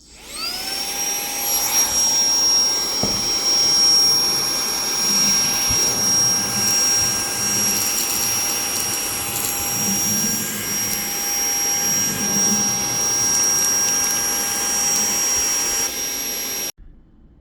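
HL-107 cordless handheld vacuum cleaner switched on at its first speed with no attachment: the motor spins up with a quick rising whine, then runs with a steady high whine over rushing air. It cuts off suddenly near the end.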